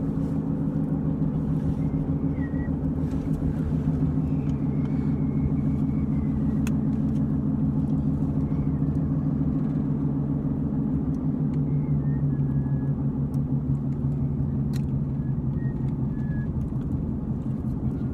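Steady engine and road noise of a Honda minivan driving along, heard from inside the cabin as an even low drone.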